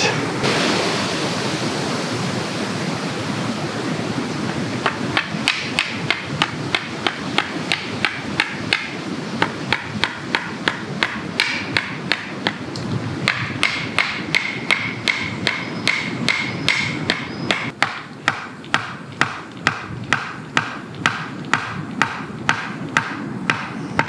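A hatchet's back pounding a wooden stake into the ground, a regular series of sharp knocks at about two to three blows a second that starts a few seconds in, over a steady rushing background noise.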